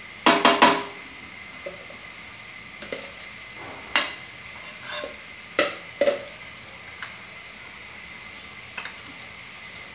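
A metal spoon knocking against a nonstick frying pan as lumps of ghee are tapped off it: a quick run of clicks near the start, then single taps every second or so.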